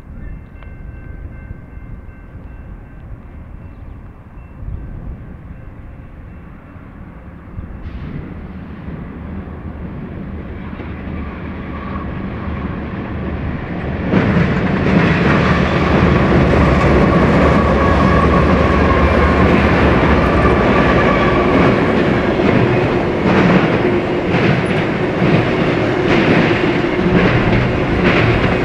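BNSF diesel-hauled freight train approaching and passing close by: the locomotives grow steadily louder and come abreast suddenly about halfway through, then the freight cars roll past with a rhythmic clatter of wheels over the rails.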